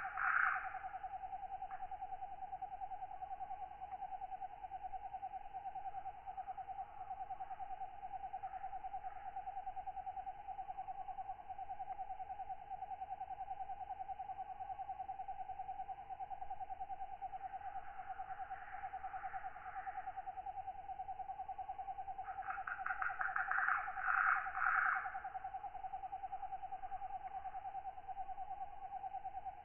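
Katydids calling at night: one steady, finely pulsing trill runs throughout, and louder rasping katydid calls a second or two long rise over it at the start and twice in the latter half.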